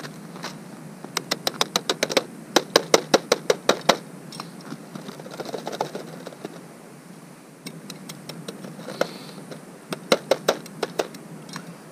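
Quick series of sharp clicking knocks, about five a second, lasting a few seconds, then a shorter run near the end.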